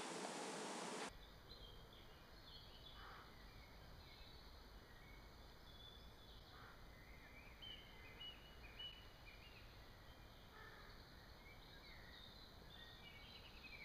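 Faint outdoor ambience: scattered short bird chirps over a low, steady background rumble.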